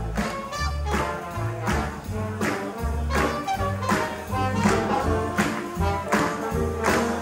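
Live swing band playing a number with a quick, steady beat, walking bass notes and brass carrying the tune.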